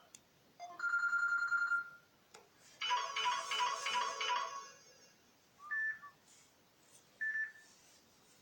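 Samsung Galaxy S7 stock notification tones played one after another: a short warbling tone about a second in, a quick cluster of chiming electronic notes about three seconds in, then two short single beeps about a second and a half apart.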